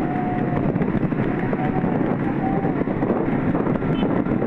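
Motorbike engines running at speed, with wind rushing over the microphone of a camera carried among the riders.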